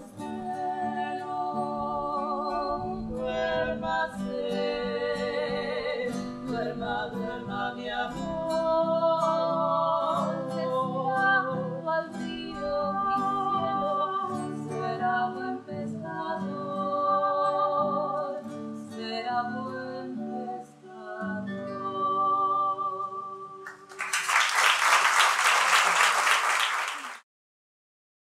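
Two women singing a slow lullaby together over fingerpicked acoustic guitar. About 24 seconds in the song ends and an audience applauds for about three seconds, then the sound cuts off abruptly.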